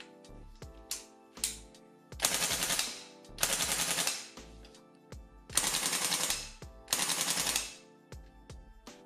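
VFC HK417 gas-blowback airsoft rifle running on HPA through a Daytona Gun kit, firing four full-auto bursts of just under a second each, the bolt cycling rapidly. Two short clicks come before the first burst.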